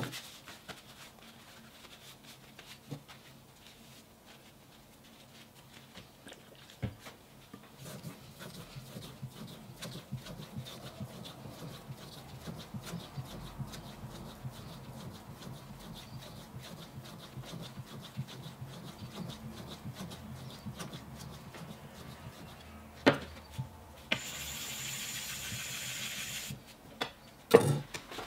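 Steel knife blade rubbed back and forth on a whetstone in repeated sharpening strokes, a fast rhythmic scraping. A few sharp clunks as the knife is handled and set down, and a steady hiss of about two seconds near the end.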